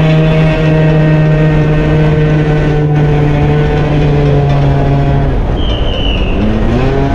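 Honda Dio 50 cc two-stroke scooter engine running under way, its pitch easing down slowly, then climbing as the throttle opens about six seconds in.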